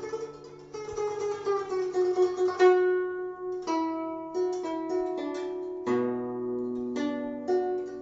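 Guzheng (Chinese zither) played solo. A quick run of plucked notes, some bent downward in pitch by pressing the strings, gives way to single ringing notes, with deeper bass notes coming in about six seconds in.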